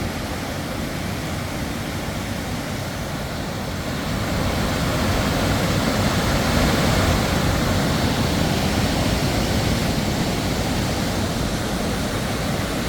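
Linville Falls' water pouring and rushing in a steady, even roar that grows louder about four seconds in.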